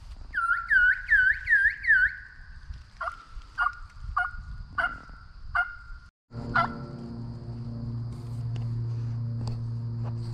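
Turkey calling on a mouth call: a quick run of about seven yelps, then five slower, spaced calls that drop in pitch. After a brief cut a steady low hum takes over.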